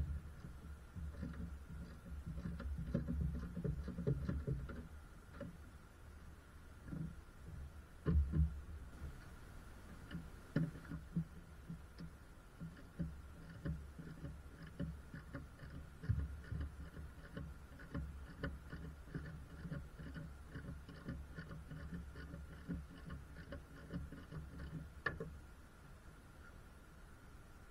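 Irregular small clicks, knocks and low thumps of hands and tools handling car parts under the bonnet, over a faint steady high tone.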